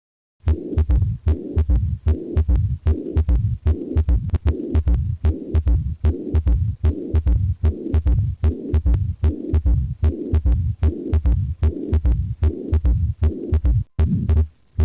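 Stethoscope recording of a heart beating regularly, with a murmur heard between the beats, starting about half a second in.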